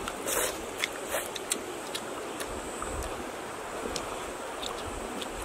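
Steady rushing outdoor background noise, with a few soft clicks and crackles in the first second and a half and again near the end, as charred grilled fish is picked apart by hand.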